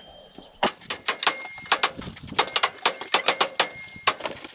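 Hand tools working on metal car suspension parts: a quick, irregular run of sharp metallic clicks and taps, some with a brief ring.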